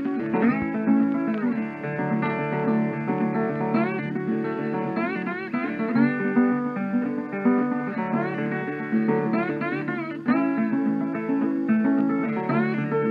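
Background music: guitar playing, with many notes that slide up or down in pitch.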